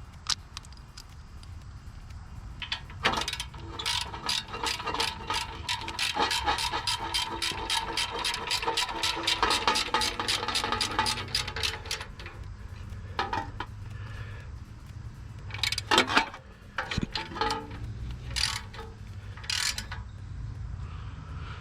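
Hand ratchet wrench clicking as small bolts are run down and tightened: a fast, even run of pawl clicks for several seconds, then a few scattered clicks and short bursts.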